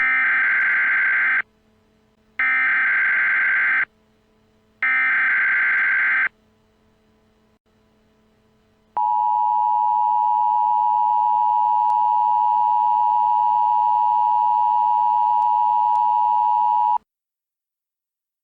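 Emergency Alert System tones: three short bursts of the SAME digital header, a buzzing data signal about a second and a half each, followed by the steady two-tone attention signal held for about eight seconds, which cuts off abruptly.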